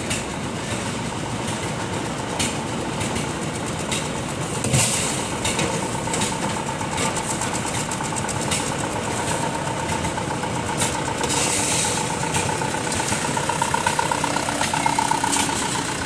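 Mitsubishi Fuso Canter truck's four-cylinder turbo-intercooled diesel engine running as the truck drives slowly up, with a steady whine that grows louder in the last few seconds. There is one sharp knock about five seconds in.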